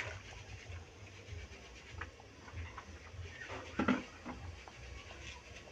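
Kitchen knife cutting a red onion held in the hand over a plastic plate: faint, irregular ticks and scrapes over a steady low rumble, with one louder brief sound about four seconds in.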